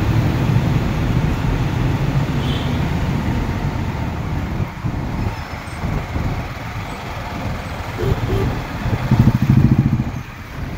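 Motorcycle ride in road traffic: steady engine, wind and road noise, with trucks close by. There is a louder stretch of low engine noise for about a second near the end.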